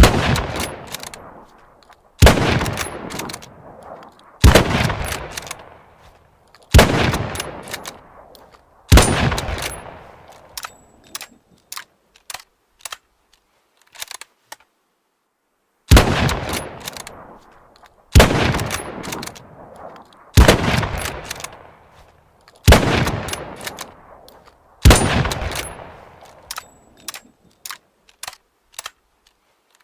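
Mosin-Nagant bolt-action rifle (7.62×54mmR) firing ten shots in two strings of five, about two seconds apart. Each shot has a long echoing decay. Small sharp clicks fall between shots and in the pause between the strings.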